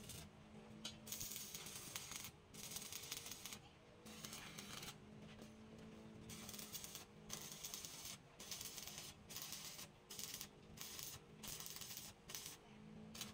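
Arc welding on a steel axle housing: the arc crackles and hisses in short bursts that stop and start every second or so, over a steady low hum.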